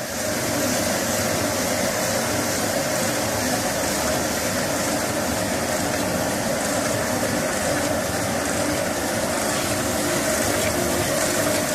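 High-speed vertical powder mixer running with a steady hum and a few held tones, while discharging its blend through a partly opened chute.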